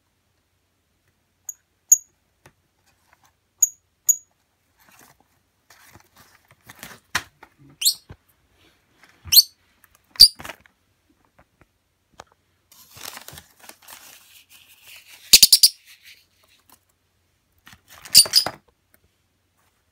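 A lovebird's short, high chirps and quick rising squeaks, followed by paper rustling and a loud paper scrape about 18 seconds in, as the folded flyer box tips over on the table.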